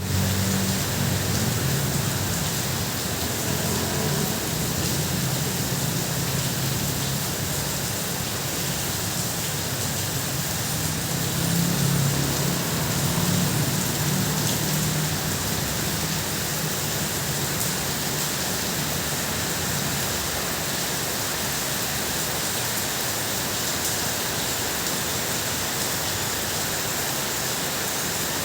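Heavy rain drumming steadily on a tin roof, a dense even hiss. Under it a low rumble swells and fades through the first half and is strongest about twelve seconds in.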